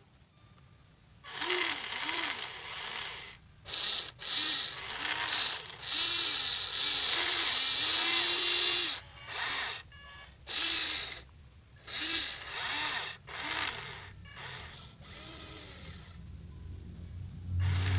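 Huina 1593 RC excavator's small electric motors and gearboxes running in short stop-start bursts as its controls are worked, the pitch dipping and rising within each burst. A low hum comes in near the end.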